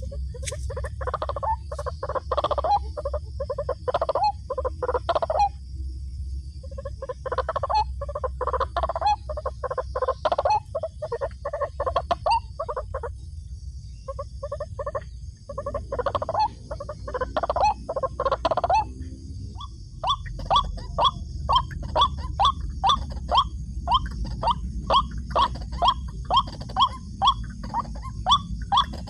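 White-breasted waterhen calling: bursts of rapid, croaking phrases, then, about two-thirds of the way in, a steady series of single notes about two a second. A steady high insect drone runs underneath.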